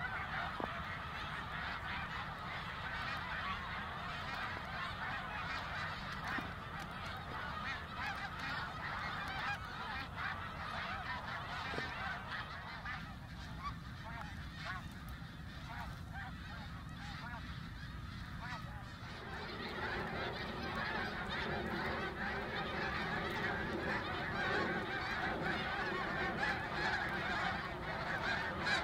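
A large flock of snow geese calling, a dense chorus of overlapping honks with no break; about two-thirds of the way through it grows fuller and a little louder. A low rumble runs underneath.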